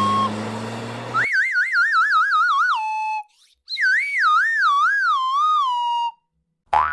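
Cartoon sound effects: a whistle-like tone wobbling rapidly up and down and then dropping to a held note, followed by a second, slower wobbling tone that also slides down and settles. A short rising boing starts near the end.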